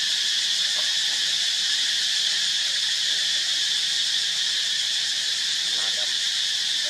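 Steady high-pitched insect chorus droning without a break, with a couple of faint, brief squeaks about a second in and near the end.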